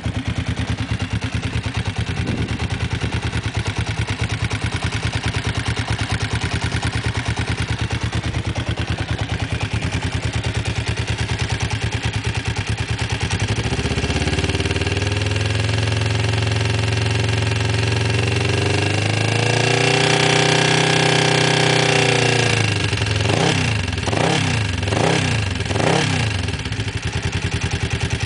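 Kawasaki GPZ motorcycle engine idling, then revved up steadily about halfway through, held at high revs for a few seconds and let fall. It then takes three quick throttle blips and settles back to idle.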